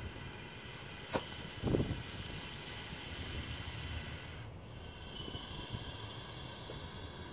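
Bullsnake giving a loud defensive hiss made by forcing air out with each breath, a long steady hiss broken by a short pause for breath about four and a half seconds in. A sharp click and then a low thump come near the two-second mark.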